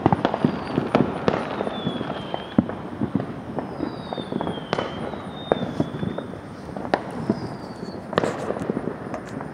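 Fireworks going off all around: irregular pops and sharp bangs over a crackle, with several faint high whistles that fall in pitch.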